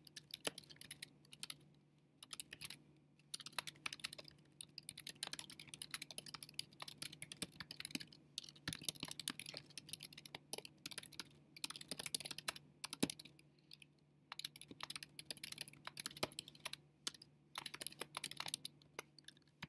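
Typing on a computer keyboard: quick runs of key clicks, broken now and then by short pauses.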